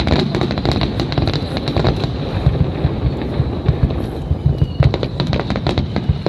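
Aerial fireworks shells bursting and crackling in quick succession over a steady low rumble. The bursts thin out in the middle and come thick and fast again near the end.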